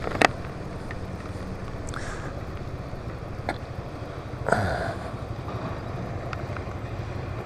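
Yamaha Majesty maxi scooter's single-cylinder engine running at low speed as the scooter slows in traffic, a steady low hum under wind noise. A few sharp clicks cut through, the loudest about a quarter second in.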